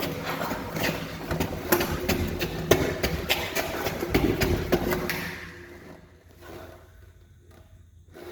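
Irregular knocks, scuffs and scrapes of a person moving through a tight tunnel, dying down to quiet about five seconds in.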